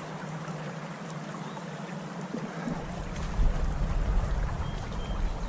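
Steady rush of flowing stream water, with wind buffeting the microphone from a little past halfway.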